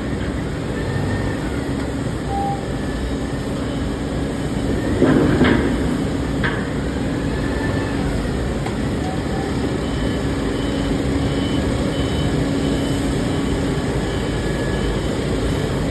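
Steady rumble of machinery at an aluminium melting furnace during dross removal, with a low hum that comes and goes and a few short knocks about five seconds in and again a little later.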